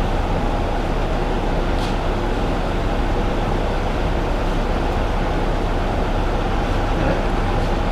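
A steady, unbroken mechanical rumble with a faint constant tone running through it.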